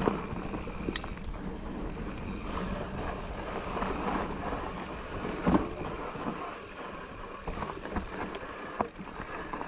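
Propain Hugene enduro mountain bike riding down a rough singletrack: tyres rolling over dirt and rock with a steady rumble, and the bike rattling and knocking over bumps, one sharp knock a little over halfway through.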